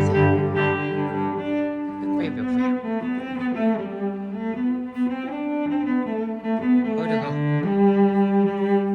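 Background music of slow, held bowed-string notes, changing pitch every second or two.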